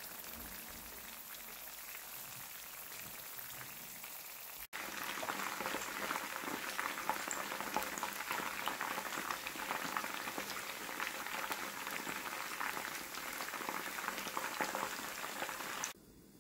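Battered ginseng roots and then battered king oyster mushroom pieces deep-frying in hot oil in a pan: a continuous fine crackle and bubbling. About five seconds in, the sound turns louder and busier with the fresh batch of mushrooms, and it cuts off near the end.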